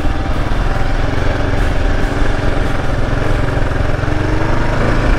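Kawasaki KLR 650's single-cylinder engine running steadily as the bike rides along at trail pace, the revs easing off near the end.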